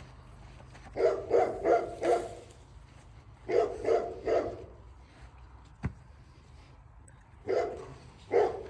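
Cane Corso puppies barking in short runs: about four barks a second in, three more past the middle, and another pair near the end. There is a single sharp click between the second and third runs.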